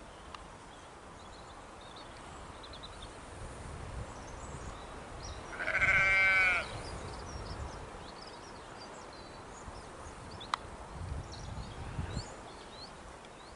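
A sheep bleats once, a single wavering bleat about a second long midway through, over faint chirping of small birds.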